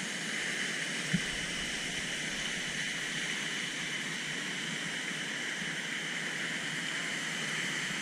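Waterfall pouring into a plunge pool: a steady rushing hiss of falling water, with one short knock about a second in.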